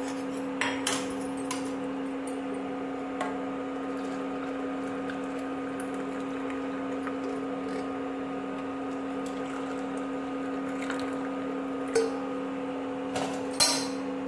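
Hot tea poured from a steel saucepan through a steel strainer into ceramic mugs, with a few sharp metal-on-ceramic clinks, the loudest two near the end. A steady mechanical hum runs underneath.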